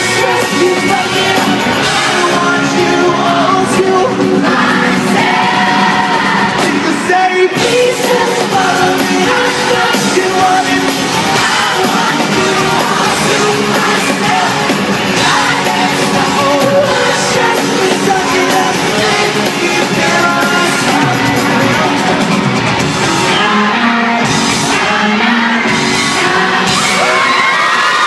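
Live pop-rock band playing, with a lead singer over electric guitar and drums, and yells and whoops rising above it.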